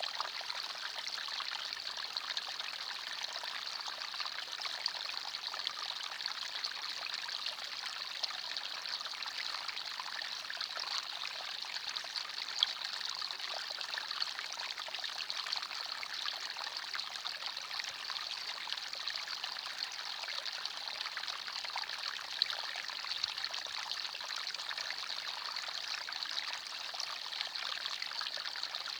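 Small forest stream flowing steadily, a continuous babble of water over stones with little splashes and trickles.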